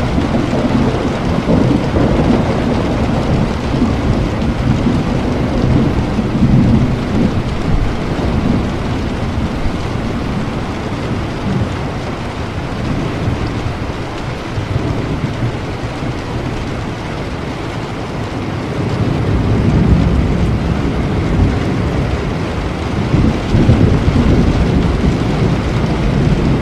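Steady rain with a low rumble that swells and fades several times.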